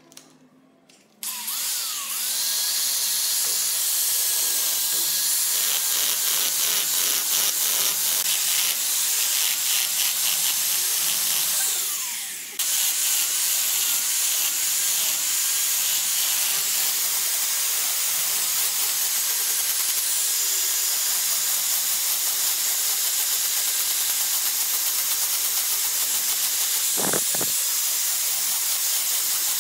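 Electric angle grinder switched on about a second in, running with a high whine and loud hiss as its disc grinds and shapes hardwood. The whine sags and the sound dips once about twelve seconds in, then picks straight back up.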